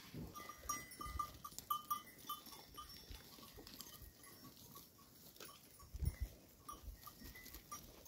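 A herd of goats and sheep grazing, with small livestock bells clinking lightly and irregularly, most in the first few seconds. A low thump comes about six seconds in.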